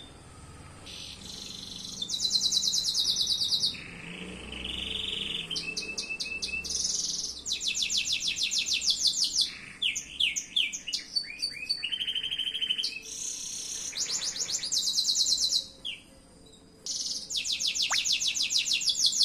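Domestic canary singing a long, varied song of fast trills and rapid repeated notes, high-pitched, pausing briefly twice.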